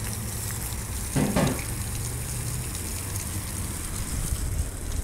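Truck engine idling steadily with a low hum, with a steady hiss over it.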